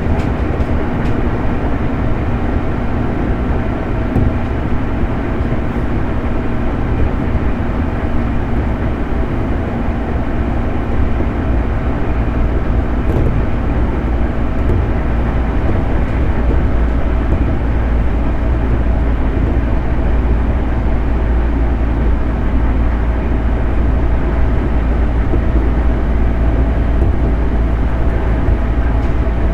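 JR 211 series electric multiple unit train running along the line: a continuous rumble of wheels on rail with a few steady hums over it. It grows slightly louder about halfway through.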